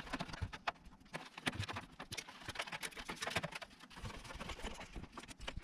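Mainboard mounting screws being driven into a PC case with a screwdriver: a run of small, irregular clicks and taps.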